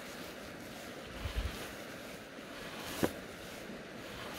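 Steady rush of flowing river water mixed with wind on the microphone, with a brief low thump about a second in and a short sharp sound about three seconds in.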